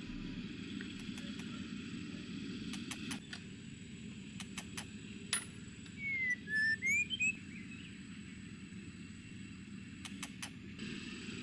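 Scattered light clicks and taps over a steady low background noise, with a short warbling whistle about six seconds in.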